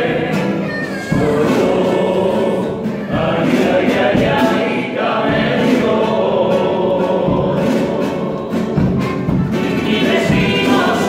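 A group of men singing a pasodoble together in harmony, with the beats of a hand-held drum underneath.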